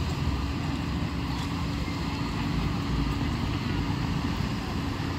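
Diesel engine of heavy road-building machinery running steadily, a continuous low rumble with a steady hum.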